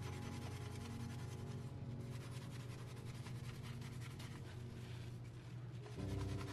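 Sponge scrubbing a soapy metal stove grate, a quick run of scratchy rubbing strokes, over a steady low hum.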